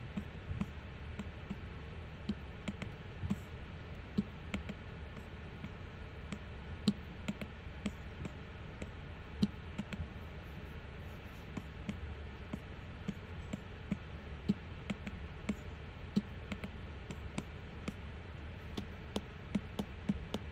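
Apple Pencil tip tapping on an iPad's glass screen: irregular light taps, roughly one or two a second, some in quick pairs, over a faint steady room hum.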